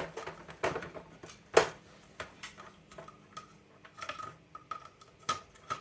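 Plastic housing parts of a DisplayPhone clicking and knocking as they are handled and slid into place, with one sharper knock about a second and a half in.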